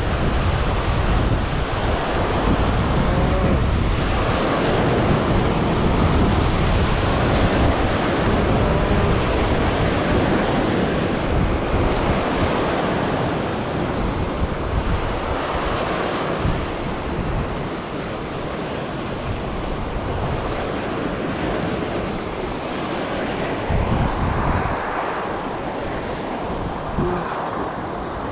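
Heavy surf breaking and washing over sea rocks, with wind buffeting the microphone in an uneven low rumble.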